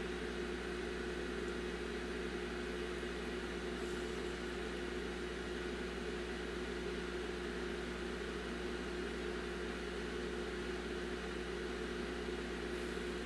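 Steady electrical or mechanical hum, a low drone with a higher tone over an even hiss, with no other event.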